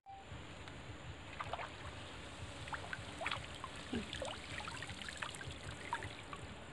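Faint water trickling and dripping off the mesh of a bamboo-framed lift net as it is hauled up out of a pond, with many small scattered drips and plinks.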